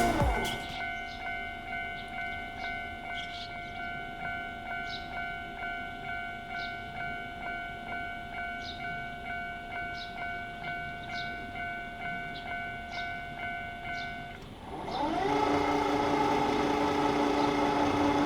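Japanese level-crossing warning bell ringing a rapid, steady 'kan-kan' at about two to three strikes a second. About fourteen seconds in, it gives way to a louder, held train horn that rises briefly in pitch as it starts and lasts about three seconds.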